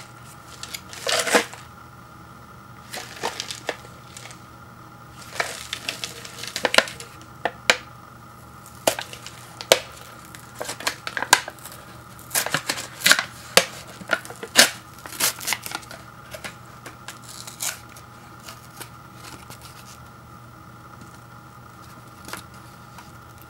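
Paper lid of an instant ramen cup being peeled back by hand: a long run of irregular sharp crinkles and tearing crackles, stopping after about seventeen seconds, leaving a faint steady hum.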